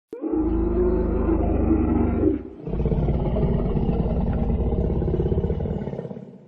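Dinosaur roar sound effect: a click, then two long deep roars, the first about two seconds, the second longer and fading out near the end.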